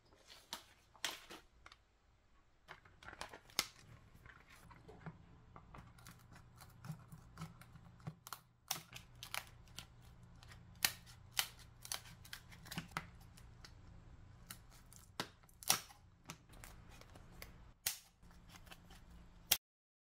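Kitchen scissors snipping through sheets of dried filefish (jwipo): many crisp snips at an uneven pace, over a faint low hum.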